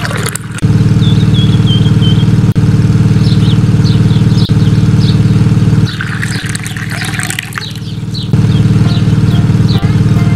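Small electric toy motor running with a steady hum. It drops away for about two seconds past the middle while a hissing noise rises, then comes back.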